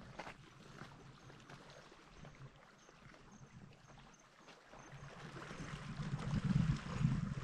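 Small waves lapping and sloshing against the rocky lake shore, growing louder about five seconds in. There are a couple of footstep crunches on loose rock at the start.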